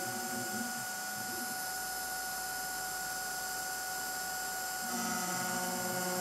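Router CNC spindle at 10,000 rpm running a 1/4-inch 45° chamfer endmill, cutting a light chamfer in aluminium. It makes a steady high whine over a hiss, a little louder from about five seconds in.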